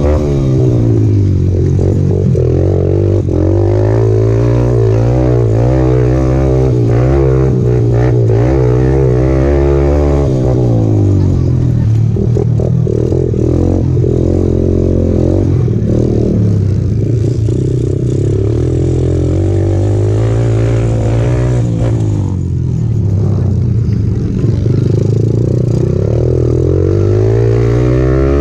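Racal 150 underbone motorcycle's engine heard on board, revving hard and easing off again and again as the bike accelerates and slows around a dirt flat track in a race. The pitch climbs and falls several times, with deeper drops about ten seconds in and again past twenty seconds.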